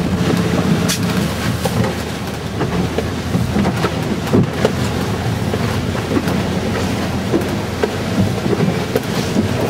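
Rough sea heard from inside a small sailing trimaran's cabin: a steady rush of water and wind along the hull, with spray spattering against the cabin window in many quick sharp taps.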